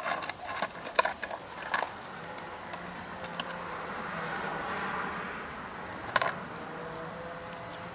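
Sharp clicks and cracks of a young gray squirrel gnawing a piece of pecan shell. They come as a quick cluster in the first two seconds, then once more about six seconds in. Under them is a faint steady hum that swells a little in the middle.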